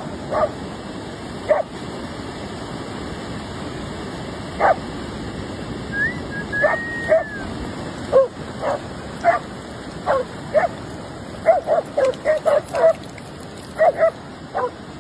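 Dogs barking in short, sharp yaps on and off, coming thicker after about eleven seconds, over a steady wash of surf and wind.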